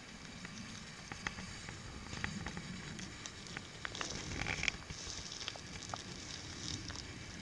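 Faint scattered crackling and sharp clicks over a low outdoor rumble, with a brief louder cluster about four seconds in.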